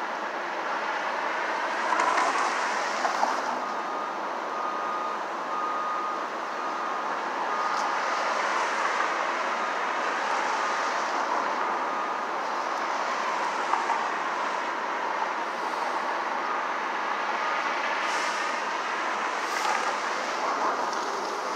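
Steady city street traffic noise, with passing vehicles swelling and fading every few seconds.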